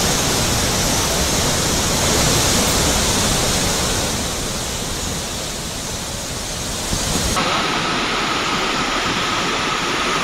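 Rushing floodwater: a steady, heavy rush of fast-flowing river water. About seven seconds in it cuts to a duller rush with less hiss and a faint steady whine.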